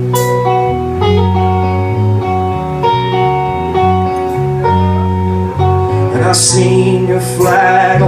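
Live band music: electric guitars and bass guitar holding slow chords over drums, with two cymbal crashes near the end.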